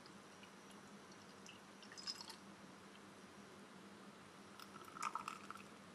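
Beer poured from a bottle into a glass: faint liquid pouring and splashing, louder for a moment about two seconds in and again about five seconds in.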